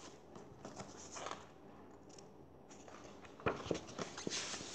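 A paperback book handled close to the microphone: scattered rustling and light taps of its cover and pages, with a louder run of clicks and rustles from about three and a half seconds in.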